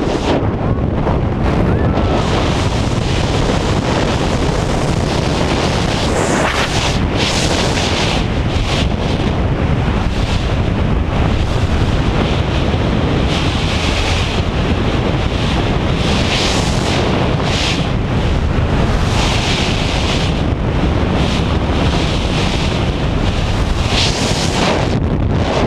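Freefall wind rushing over the camera microphone during a tandem skydive: a loud, steady roar.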